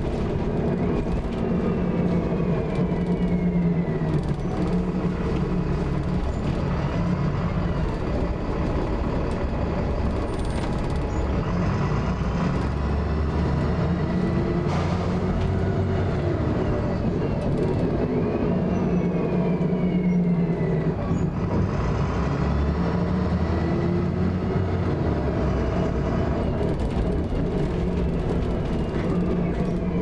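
VDL Commander single-deck bus under way, heard from inside the passenger saloon: its rear engine and drivetrain running with a steady drone, and high whining tones that fall and rise in pitch every few seconds. The uploader reports a grinding noise from the rear at high speed, and one knock sounds about halfway through.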